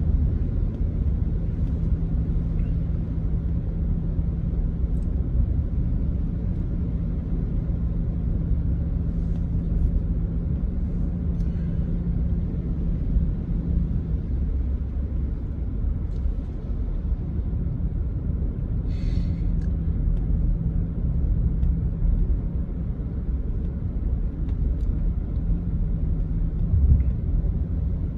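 Vehicle driving along a road, heard from inside the cab: a steady low rumble of engine and tyres, with a low hum that fades about halfway through and comes back a few seconds later.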